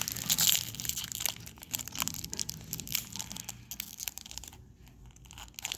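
Foil Pokémon card-pack wrappers crinkling and crackling in the hands. The crackling is densest in the first second or so, then thins to scattered crinkles.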